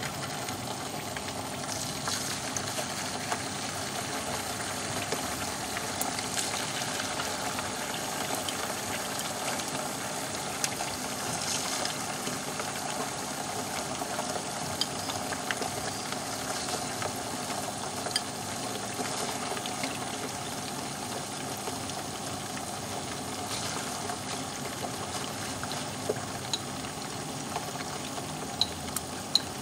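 Raw chicken wings frying in hot oil in a nonstick pan: a steady sizzle with scattered crackles and pops as more pieces are laid into the oil. A few sharper clicks near the end.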